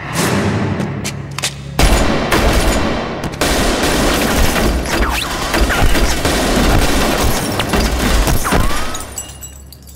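Action-drama shootout: dense, rapid automatic gunfire, with a heavy bang about two seconds in, dying away near the end.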